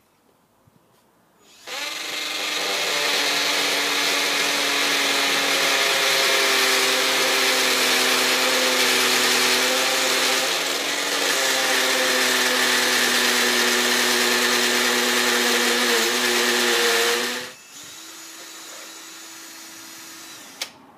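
Power drill with an 11 mm bit boring a hole, running steadily for about sixteen seconds from a couple of seconds in. It then drops to a quieter, slightly higher-pitched run for about three seconds before stopping.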